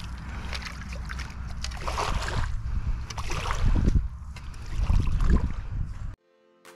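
Spade digging in wet, muddy ground: scraping and squelching, with two louder scoops about four and five seconds in, over a steady low rumble. It cuts off abruptly near the end, where music begins.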